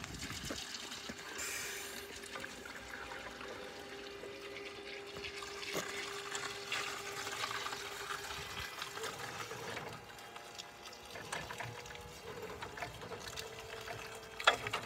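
Toyota 6FB18 battery-electric forklift driving on wet asphalt: a steady electric motor whine over the hiss of its tyres on the wet surface, with one sharp knock near the end.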